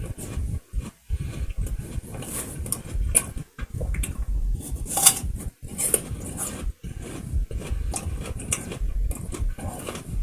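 Close chewing of a firm apple: uneven crunching and mouth sounds with short pauses.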